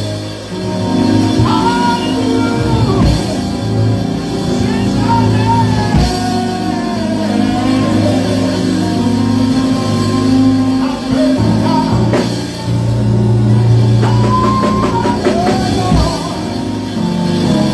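Live worship music: a band with drums and guitar playing steadily under a singer's long, gliding held notes.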